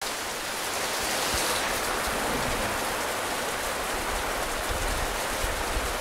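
Steady rain falling during a thunderstorm, an even hiss with no thunder in it.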